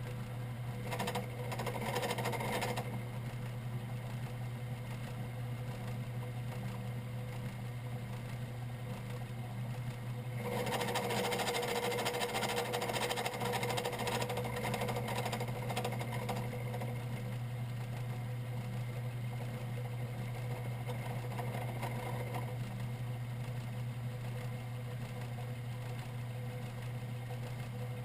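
Metalworking machine tool running steadily at about 750 RPM with a constant motor hum, growing louder and noisier for a couple of seconds near the start and again for several seconds in the middle.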